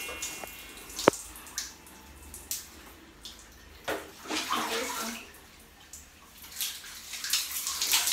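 Water scooped and poured from a plastic dipper, splashing over a person and onto a tiled floor in irregular splashes. A sharp knock about a second in.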